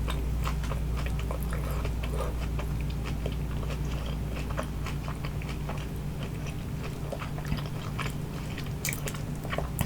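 Close-miked chewing of a crispy spring roll: many small crunches and wet mouth clicks, scattered irregularly over a low steady hum.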